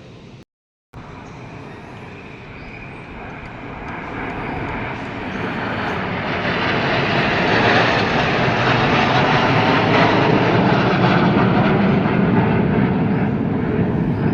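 Jet aircraft engine roar from BAE Hawk trainers in a flypast, growing steadily louder over several seconds as they approach and then holding loud. There is a short dropout in the sound just after the start.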